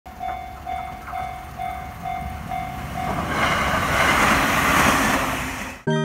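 Japanese level-crossing warning bell ringing steadily, about two strokes a second. From about three seconds in, the rushing noise of a train on the Tohoku Main Line grows over it and becomes the loudest sound, then everything cuts off suddenly just before the end.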